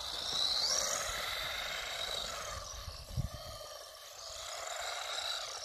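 Battery-powered RC car's electric motor whining as it revs, rising in pitch about half a second in, while its wheels slip on snow.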